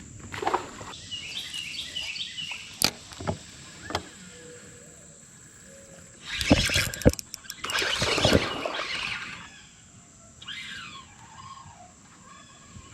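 Birds chirping in short repeated and falling calls over a steady high insect-like whine, with two loud, noisy bursts about six and eight seconds in.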